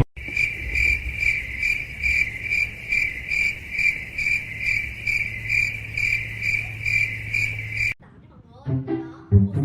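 Cricket chirping in an even rhythm, about two and a half chirps a second, over a low steady hum; it cuts off suddenly about eight seconds in.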